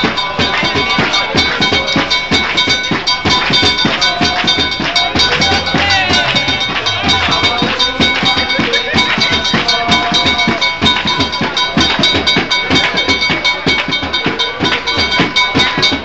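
Fast, steady percussion music: dense, rapid drum and percussion hits with a few steady high ringing tones over them.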